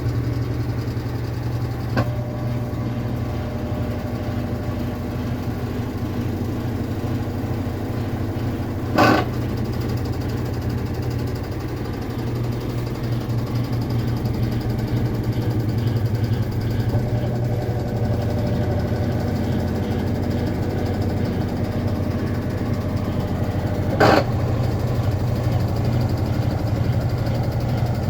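Consul Facilite 8 kg washing machine spinning with a loud, steady low drone and rattle, and two sharp knocks about fifteen seconds apart. It is the infernal noise the machine makes on spin, which got worse after the gear kit was replaced.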